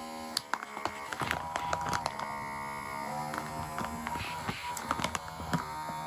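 Small battery-powered USB vacuum pump running on the valve of a resealable storage bag, drawing the air out, a steady motor hum that shifts in pitch now and then. Scattered sharp clicks and crackles sound over it.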